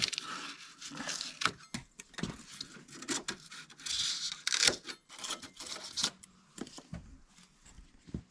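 Styrofoam being broken and pulled out by hand: irregular crackling, scraping and light knocks, dying down near the end.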